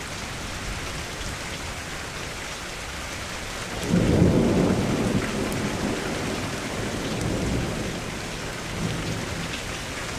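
Steady rain with a roll of thunder about four seconds in: a sudden low rumble that dies away over the following few seconds.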